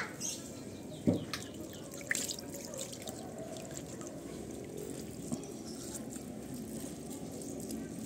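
Water dripping and trickling, with a couple of sharper drops or small splashes about one and two seconds in.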